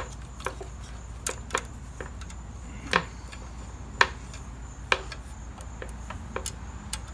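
Irregular sharp metal clicks and clacks, about nine or ten of them, as a valve spring compressor is handled and worked loose from the exhaust valve spring of a Briggs & Stratton flathead engine. A low steady hum runs underneath.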